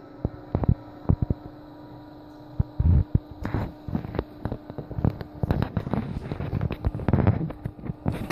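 Handling noise of a phone being moved about against fabric: irregular knocks, bumps and rubbing, a few at first and then a dense run from about three and a half seconds in, over a faint steady hum.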